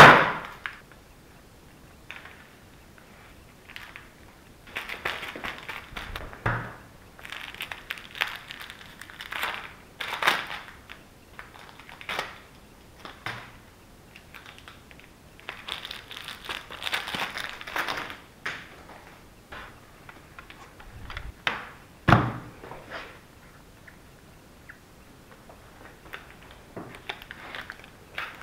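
Foil wrapper of a chocolate Easter egg crinkling and rustling in irregular bursts as gloved hands break the egg and dig through the pieces. There is a sharp crack at the very start as the egg is smashed, and a single knock about three-quarters of the way through.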